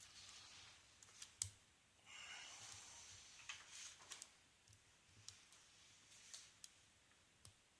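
Faint clicks and scraping from a short hook pick working the pins of a Best six-pin brass padlock under tension, the lock still unpicked. A scattered handful of sharp clicks, with a short stretch of scraping about two seconds in.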